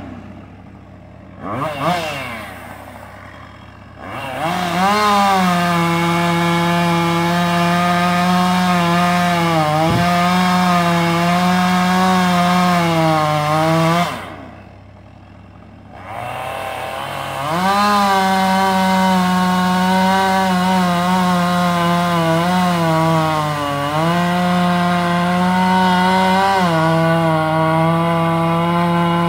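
Husqvarna 550 XP two-stroke chainsaw idling with a quick rev, then held at full throttle for about ten seconds, its pitch sagging as the chain bogs under load in the cut. It drops back to idle for a few seconds, then runs at full throttle again, with another sag under load partway through.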